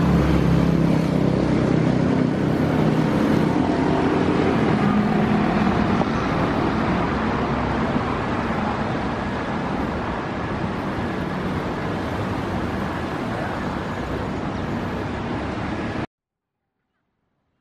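City road traffic: a steady rumble of motor vehicles that eases slightly and cuts off abruptly near the end.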